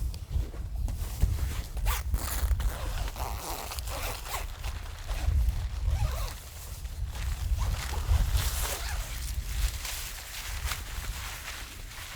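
A zipper pulled in a series of rasping strokes, over a low steady rumble.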